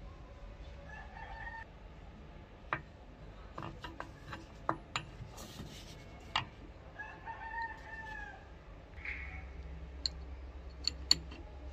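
A rooster crows twice, a short crow about a second in and a longer, arching crow about seven seconds in. Around it come sharp metallic clicks and taps of small metal fittings and a screwdriver on a brass rifle butt plate, the loudest click near the end.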